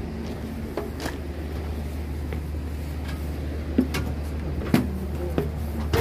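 Steady low drone of a standing diesel train, with footfalls and knocks on a metal boarding step and the carriage's steel floor, the sharpest a little before and after the four-second mark.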